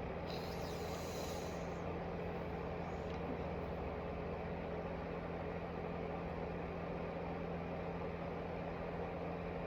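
A steady background hum with a constant low tone over an even noise, unchanging throughout; a faint hiss comes in briefly near the start.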